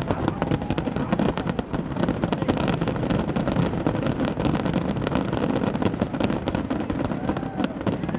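Fireworks going off in rapid succession: dense crackling over a continuous low rumble.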